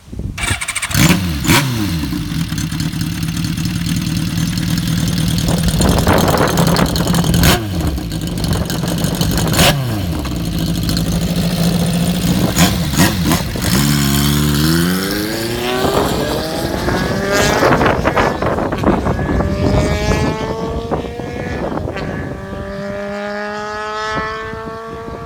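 Kawasaki Z400FX air-cooled inline-four through a prototype Nakazawa dual-outlet collector silencer, idling with several sharp throttle blips. It then pulls a long climb in pitch into a high wail, steps down once near the end, and climbs again.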